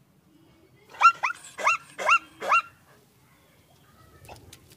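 Zebra's barking call: a quick run of about five high yelping notes, each rising then dropping, about a second in. A fainter call follows near the end.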